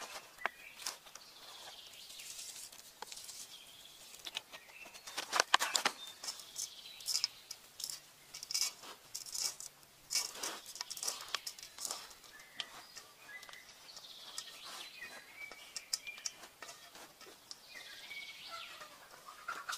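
Hands mixing and kneading damp fishing bait powder in a metal basin: scattered rustles, crunches and clicks, a few louder ones. Birds chirp in the background, most plainly in the second half.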